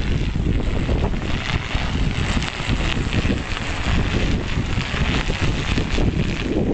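Wind buffeting a phone's microphone: a steady, rough rumble with constant flutter.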